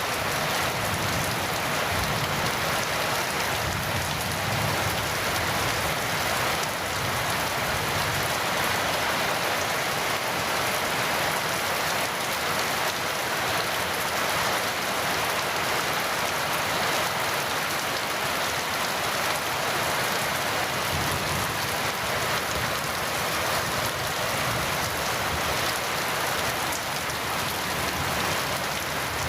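Heavy rain falling steadily, a dense even hiss of drops on surfaces with no break.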